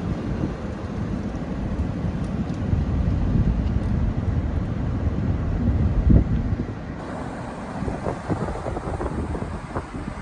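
Wind buffeting the microphone in a snowstorm: an irregular low rumble that swells and eases in gusts, with a louder thump about six seconds in.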